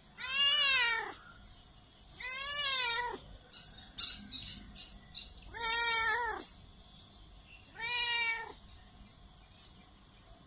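Domestic cat meowing four times, each meow about a second long and rising then falling in pitch. Between the second and third meow comes a quick run of short high-pitched sounds.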